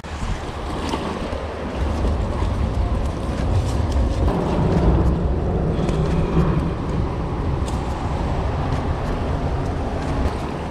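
Wind buffeting the microphone as a steady low rumble, over water lapping against the concrete bridge piling and the kayak, with a few faint clicks.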